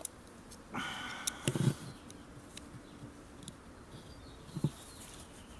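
Faint handling noise from a knife and measuring tools: a short scraping rustle about a second in, followed by a few small scattered clicks.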